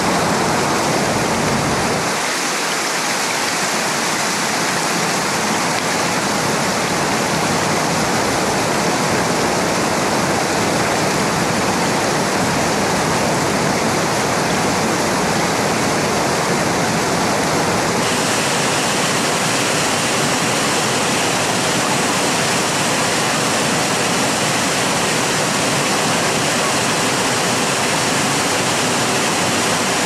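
Mountain creek rushing over granite boulders: a steady, even rush of white water, its tone shifting slightly about 18 seconds in.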